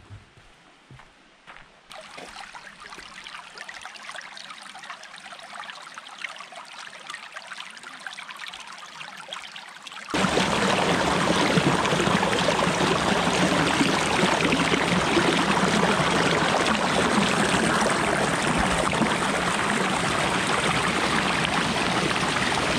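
Water of a tall, multi-level waterfall on low flow, splashing and trickling over rock as a steady rush; faint at first, then much louder from about ten seconds in.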